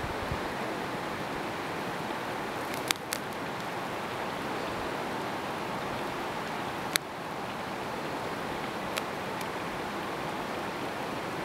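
Steady rushing outdoor noise, with a few sharp clicks about three and seven seconds in.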